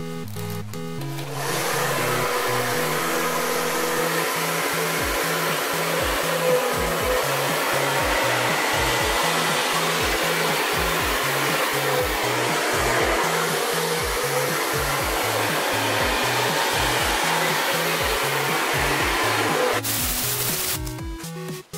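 Hair dryer running steadily, blowing wet acrylic pouring paint across a canvas. It switches on about a second in and off near the end, over background electronic music with a repeating bass line.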